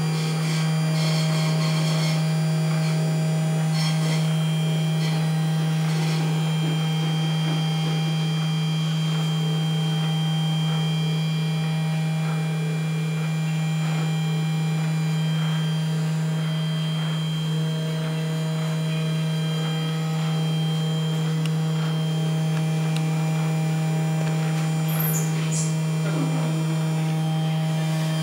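Desktop CNC PCB milling machine running as it slowly mills a shape: its small DC spindle motor gives a loud steady low hum. Fainter, higher thin tones start and stop several times as the axes move.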